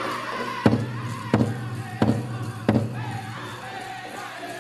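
Powwow drum group starting a chicken dance song. The singing voice is heard first, then the big drum comes in about two-thirds of a second in with four hard, even beats roughly two-thirds of a second apart under the singing. The drum drops out in the second half while the singing goes on.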